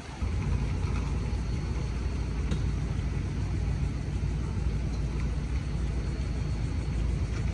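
Steady low rumble of a vehicle engine idling, coming in abruptly just after the start and holding level throughout.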